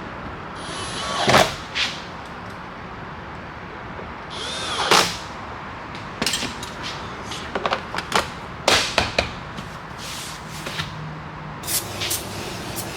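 A cordless power drill or driver runs twice in short rising whines, each ending in a sharp hit, followed by a run of clicks and knocks from handling metal and plastic parts in the truck door.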